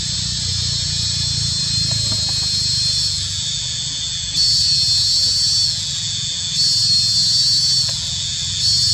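Insects buzzing in a steady high drone that swells louder three times for about a second each, over a low steady rumble. No monkey cries are heard.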